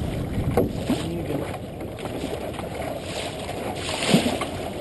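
Water rushing and slapping along a small sailboat's hull as it sails, with wind buffeting the microphone. A louder splash comes about four seconds in.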